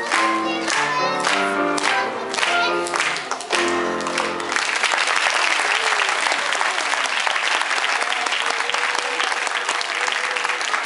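Grand piano playing the closing bars of a piece, ending on a held low chord about four seconds in, then audience applause.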